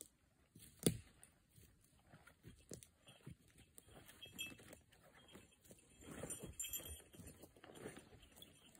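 Irregular footsteps crunching on needle litter and twigs, growing busier and louder after about six seconds, with one sharp knock or snap about a second in.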